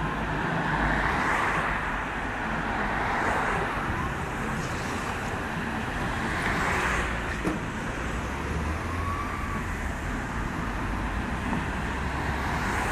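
Road traffic on a busy street, with cars passing close by one after another, each one swelling and fading as it goes past.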